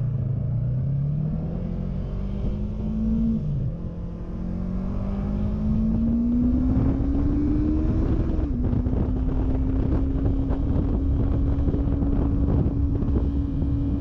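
Yamaha R3's 321cc parallel-twin engine accelerating through the gears: the pitch climbs, drops at a gear change about three and a half seconds in, climbs again with another shift near the eight-second mark, then holds steady at cruising speed, with wind rush underneath.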